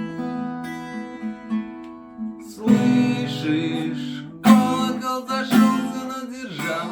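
Music: acoustic guitar, held chords ringing out, then strummed chords coming in about two and a half seconds in, with two more strong strums near the middle and after it.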